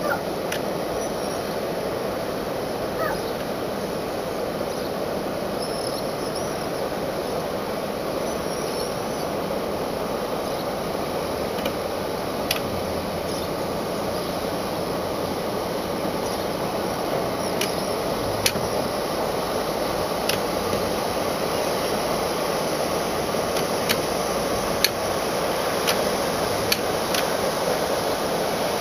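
Cruiser's inboard engine running steadily at low revs as the boat creeps forward, with a scattering of sharp clicks, more of them in the second half.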